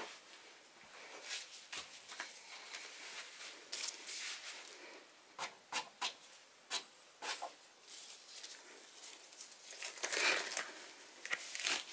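Irregular light rustling and small sharp clicks of hands handling things on a worktable, with a longer, louder rustle about ten seconds in.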